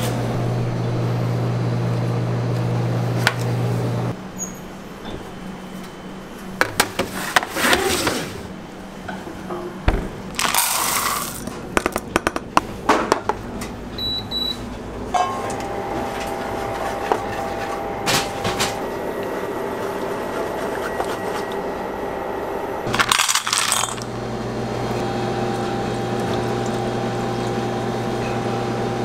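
A clatter of small hard pieces on metal, as chocolate callets are tipped into a stainless-steel saucepan, set between stretches of steady kitchen-machine hum. From about halfway, a steady electric whine joins in, from the induction hob heating the pan.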